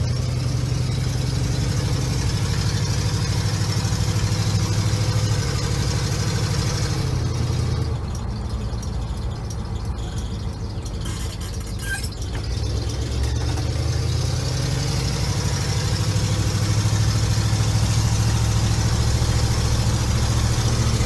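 1976 Ford F-150 pickup's engine running just after a tune-up with new plugs, wires and coil and a new fuel filter: a steady low drone that drops off in level about eight seconds in and builds back up from about fourteen seconds.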